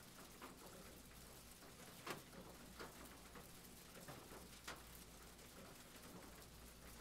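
Near silence: faint steady hiss with a handful of soft, short ticks spread through it.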